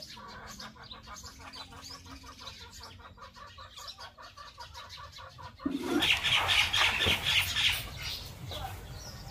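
Birds calling, faint at first, then louder and busier from about six seconds in.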